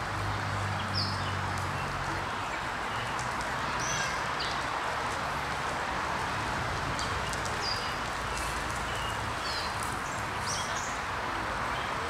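Outdoor ambience with a steady background hiss, broken by scattered short, high chirps of small birds. A low hum fades out about two seconds in.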